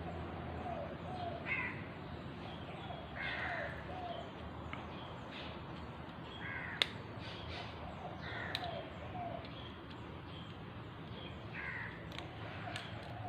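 Birds cawing, short harsh calls repeating every second or two over a steady low hum, with two sharp clicks in the middle.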